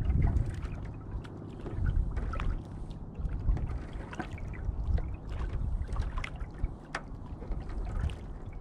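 Canoe paddling on calm water: a paddle dipping and pulling, with small splashes, drips and knocks recurring every second or two over a steady low rumble.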